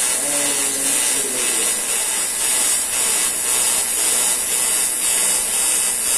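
AC TIG welding arc on aluminium, running as a loud steady high hiss.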